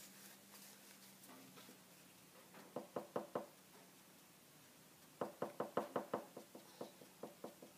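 Quick runs of light knocks: a clear acrylic stamp block with a rubber stamp knocking against a cutting mat as the inked stamp is dabbed with tissue. A short burst of about five taps comes about three seconds in, then a longer, faster run starts about two seconds later.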